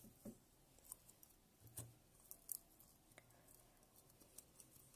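Near silence with faint, scattered clicks and small taps, the quiet sounds of a slime container being handled and opened.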